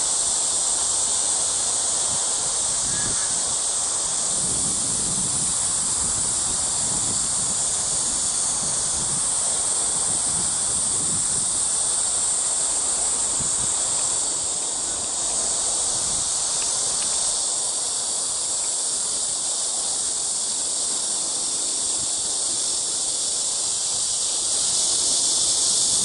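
Cicadas calling: a loud, steady, high-pitched buzz with no break, swelling slightly near the end.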